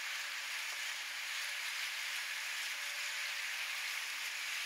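Steady rushing noise on board a passenger ferry under way, with a faint steady engine hum beneath it.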